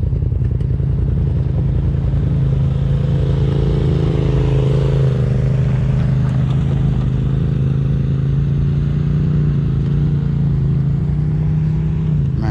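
Polaris RZR side-by-side engine running steadily at low trail speed, its note rising slightly a few seconds in and then settling.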